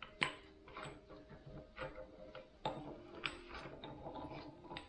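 Steel Torq Locker internals (cam gears and axle gears) being worked out of a Dana 30 differential carrier: a series of light metal clicks and clinks, several ringing briefly.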